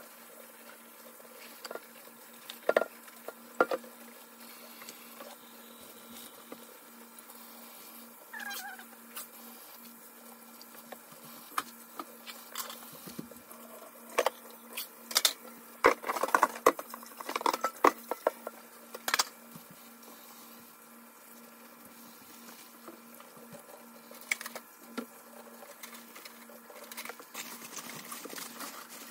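Kitchen tap running into a sink while a head of lettuce is washed and handled under it, with scattered sharp clicks and knocks, bunched most thickly about halfway through.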